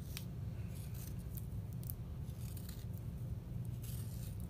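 Small folding knife blade paring thin cuts from a green sassafras branch: a string of short scraping cuts at an uneven pace, over a steady low hum.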